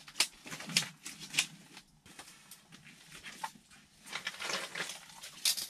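A freshly landed whitefish being handled: three sharp slaps about half a second apart, then rustling and handling noise over the last couple of seconds.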